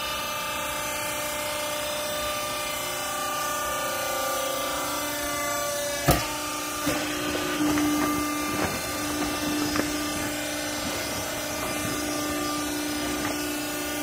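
Hydraulic power unit of a vertical clothes baler running with a steady hum. A sharp knock comes about six seconds in, followed by scattered knocks and rustling.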